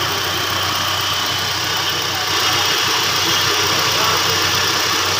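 Suzuki Liana engine idling steadily. The engine has overheated and is pushing out coolant, and the mechanic says its head gasket is blown.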